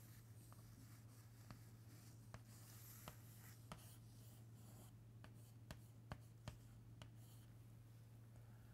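Faint chalk writing on a chalkboard: soft scratching strokes and about ten sharp, irregular taps of the chalk as lines and a box are drawn, over a steady low hum.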